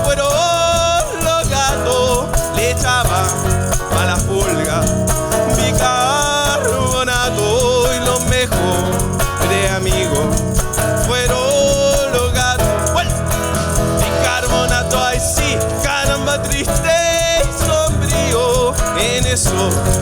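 Cueca music with a singing voice over steady instrumental backing.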